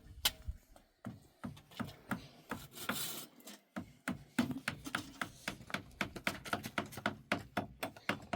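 A quick, irregular series of knocks and taps, about three to four a second, with a short scraping hiss about three seconds in.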